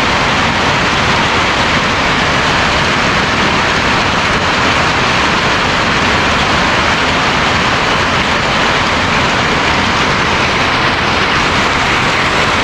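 Hailstorm: hailstones and rain pelting roofs and the ground in a loud, steady hiss that does not let up.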